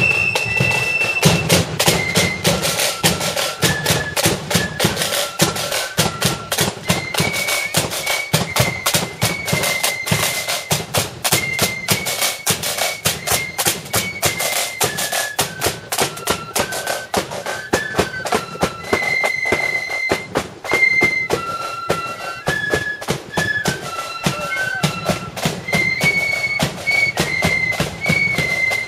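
Marching flute band playing a tune: massed flutes in unison carry the melody over rapid side-drum strokes and bass drum beats.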